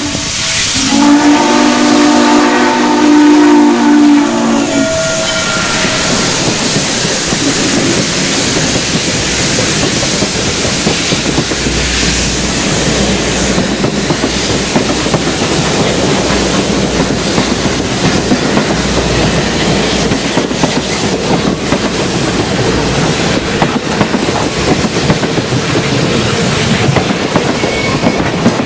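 Norfolk and Western 611, a class J 4-8-4 steam locomotive, blows its steam whistle for the crossing: a long blast of several notes sounding together in the first few seconds, then a short one. After that its passenger cars roll steadily past with a continuous clickety-clack of wheels over the rail joints.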